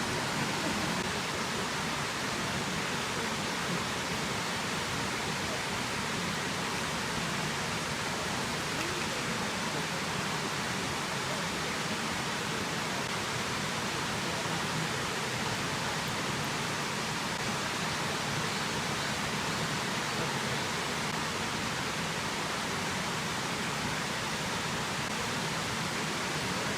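Waterfall pouring in a steady, unbroken rush of falling water.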